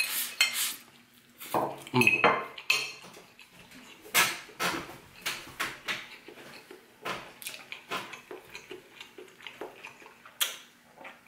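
A metal fork clinking and scraping against a plate as rice is shovelled from it into the mouth, a run of short sharp clicks and clinks. Partway through, the plate is set down on a wooden board with the fork on it.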